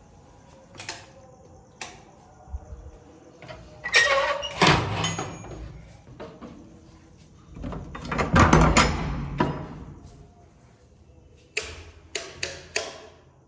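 Doors being opened and shut: scattered clicks and knocks, with two longer, louder noises about four and eight seconds in.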